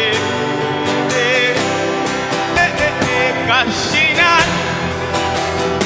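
Live gospel worship music: a band holding sustained chords with guitar, under wordless singing with wavering vibrato runs that slide up and down.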